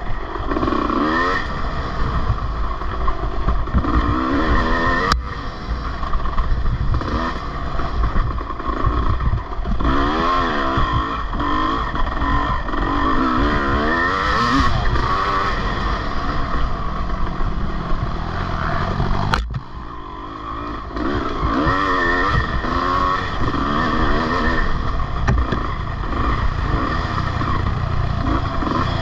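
Dirt bike engine revving up and down over and over as it is ridden hard in an off-road race, with two sharp knocks, about five seconds in and near the twenty-second mark, the engine easing off briefly after the second.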